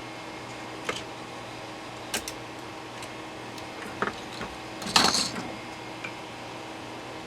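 Scattered small clicks and taps of tools and parts being handled at a workbench, about five in all, with a louder clattering rattle about five seconds in, over a steady low hum.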